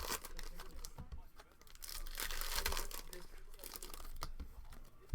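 Trading-card pack wrappers being torn open and crinkled, in irregular rustling bursts that are loudest a couple of seconds in.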